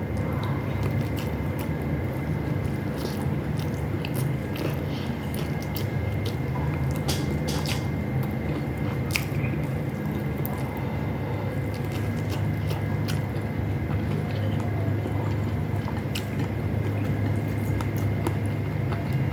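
A person chewing and eating beefloaf and rice close to the microphone, with many small wet mouth clicks and smacks scattered throughout. A steady low hum runs underneath.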